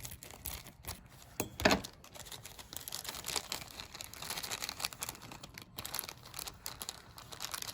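Small parts being handled by hand: light clicks and ticks with a rustling, crinkling stretch in the middle, as lock-cylinder tumblers are picked out and sorted from a parts kit.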